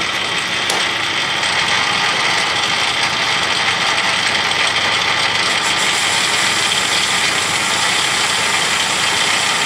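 Metal lathe running under power, its carbide tool taking a facing cut across the end of a cast iron bar: a steady whine and hiss with no breaks.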